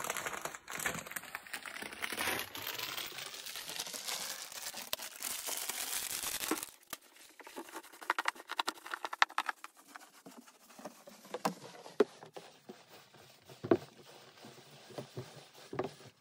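Paper hamster bedding rustling and crackling as it is pulled apart and spread by hand: a steady rustle for the first six or seven seconds, then scattered softer crackles.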